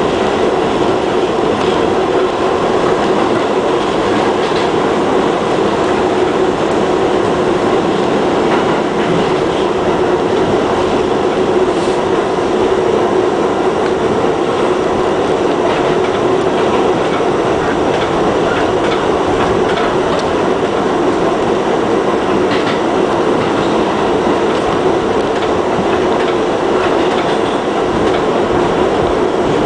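R68A subway car running along the track, heard from inside the car: a steady loud rumble of wheels and running gear with a steady hum and scattered clicks from the rails.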